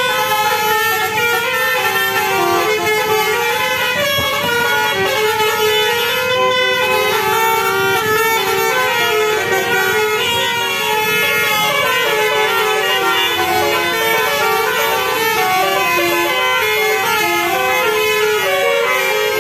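Bus basuri horn, a multi-tone melodic air horn, playing a tune: a loud, unbroken run of short notes stepping up and down in pitch.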